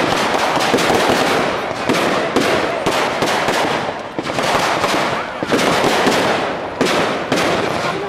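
Fireworks display: aerial shells bursting into crackling gold stars, with a dense run of rapid cracks and several sharp bangs through it.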